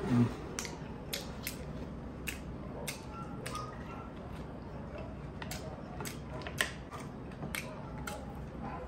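Close-miked eating: irregular wet mouth clicks and smacks, around two a second, as someone chews and sucks at braised tuna eyes. A short low thump comes right at the start.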